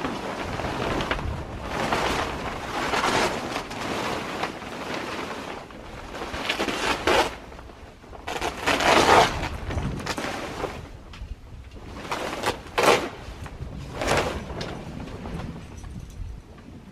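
A ShelterLogic tent's tarp cover rustling and scraping as it is dragged off the metal pipe frame. The rustling swells and fades several times, loudest about nine seconds in.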